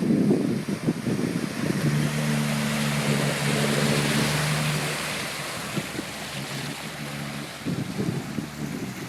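Off-road 4x4 driving through muddy water, with a rushing splash of water over its engine. The engine runs at a steady note for a few seconds, then the splashing fades away near the end.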